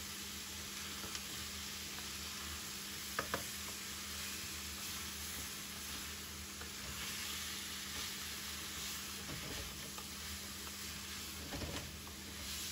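Chicken and vegetables sizzling steadily in a nonstick pan as they cook down in their own juices, stirred with a wooden spatula that knocks twice against the pan about three seconds in.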